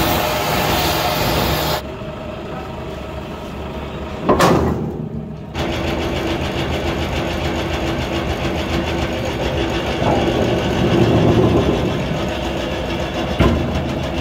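Hydraulic press running with a steady mechanical hum as it compresses an excavator track adjuster spring. Its sound changes abruptly about two seconds in and again about five and a half seconds in, with a short loud noise just after four seconds.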